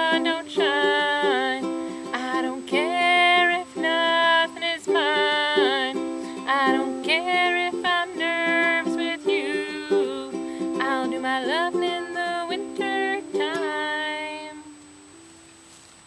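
Ukulele playing with a high wordless melody over it. The music stops about fourteen and a half seconds in, and the last note rings out briefly.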